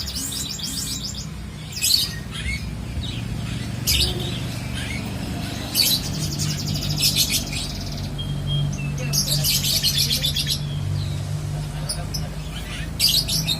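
Caged birds chirping and chattering in short, rapid, shrill trills that come every second or two.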